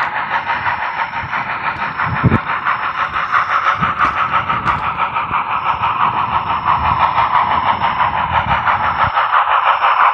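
Soundtraxx Tsunami sound decoder in an HO scale brass 2-8-2 Mikado playing steam exhaust chuffs through the model's small speaker as it runs, in an even beat of about three chuffs a second. A low thump comes a little over two seconds in.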